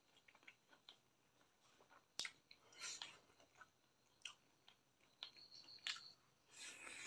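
Faint, close-miked eating sounds: wet chewing and lip smacks with scattered sharp clicks, as fingers tear curried chicken meat off a leg piece and bring it to the mouth.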